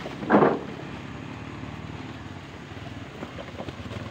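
Loose oil palm fruitlets pouring from a sack onto a wooden truck bed in one short rushing spill about half a second in, with a few light clicks of fruitlets later. Under it runs a steady low engine hum.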